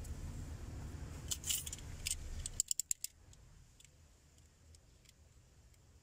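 Handling of a roll of vinyl electrical tape as it is wrapped around wires: sharp crackling clicks and rustles, with a quick run of clicks about two and a half seconds in. A low background rumble cuts off abruptly at the same moment.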